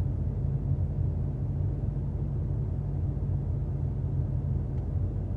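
Excavator-mounted hydraulic breaker hammering its chisel into rock in rapid, steady blows, low-pitched and heavy.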